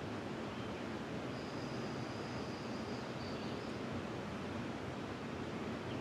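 Steady rushing of river water, an even hiss with no breaks. About a second in, a faint, high, thin note is held for a couple of seconds above it.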